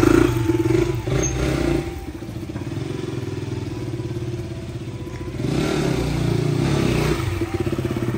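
KTM Duke motorcycle engine running and being revved: loud for the first couple of seconds, lower for a few seconds in the middle, then revved up again.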